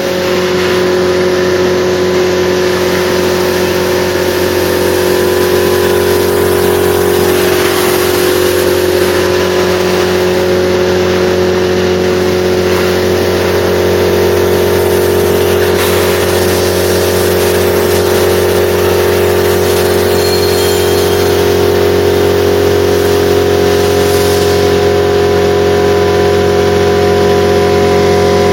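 Multi-Vac industrial vacuum loader running steadily under load, a constant machine drone with a rushing of air as hay is drawn up a 4-inch hose and tool.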